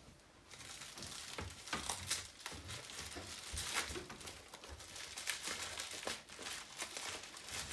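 Clear plastic wrapping crinkling and crackling as hands pull at it on a taped parcel, in irregular rustles.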